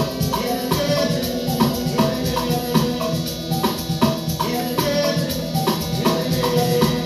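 Amapiano dance music being mixed on a DJ controller: a steady bass line under a fast, even drum and shaker beat.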